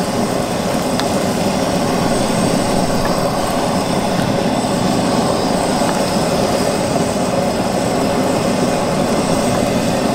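Shrimp and beef bubbling and sizzling in a skillet of liquid on a Coleman camp stove, a steady, even noise that holds throughout.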